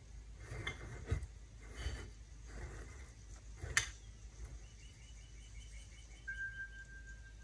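Tarot cards being handled: faint rustles and light taps, with one sharper click about four seconds in. Near the end a faint, high, steady tone comes in.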